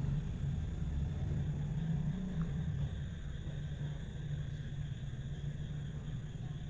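A low, steady rumbling hum of background noise.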